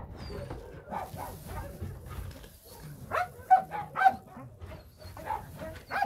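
Dog barking in short yelps, the two loudest about three and a half and four seconds in.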